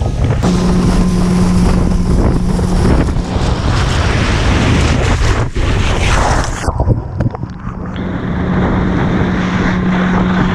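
Wind buffeting an action-camera microphone and water spray rushing, over the steady drone of the towing boat's engine, as heard while wakeboarding. About seven seconds in the rushing cuts out and goes muffled for about a second, then comes back.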